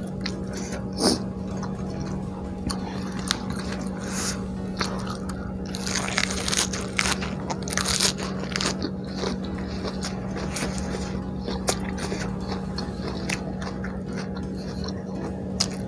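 Close-up chewing and biting of food, with scattered crunchy bites and a denser run of crunching about halfway through, over a steady low hum.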